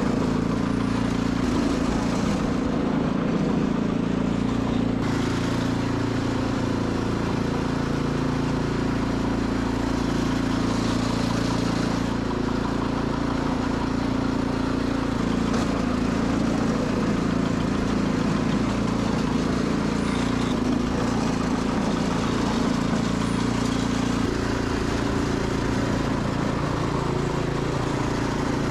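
Sears Suburban SS12 garden tractor engine running steadily at an even speed.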